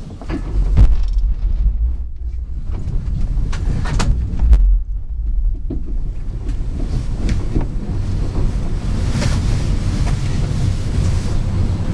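Passenger coach of an Italian Intercity train rolling at low speed, heard from inside: a steady low rumble of the running gear with scattered clicks and knocks of the wheels passing over rail joints and points. There are two heavier bumps, about one and four and a half seconds in.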